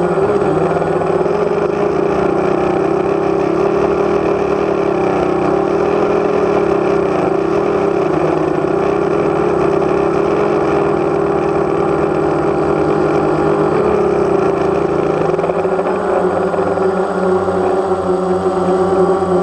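DJI Phantom quadcopter's electric motors and propellers humming steadily, heard up close from the aircraft itself, with small shifts in pitch about a second in and again after fourteen seconds as the drone manoeuvres.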